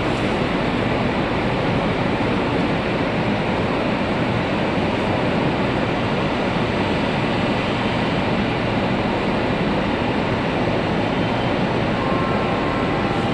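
Steady rushing noise of a subway train standing at an underground platform with its doors open, from its air-conditioning and ventilation running.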